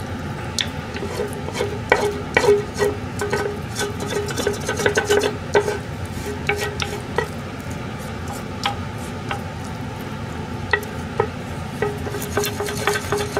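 Wooden spatula scraping and tapping against a non-stick frying pan, pushing spaghetti with meat sauce out onto a plate, with many small scrapes and clicks.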